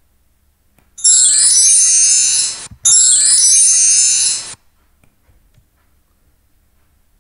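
A bright, high electronic chime jingle, a run of quick tinkling notes, plays twice in a row starting about a second in. Each play lasts about a second and a half with a tiny gap between them.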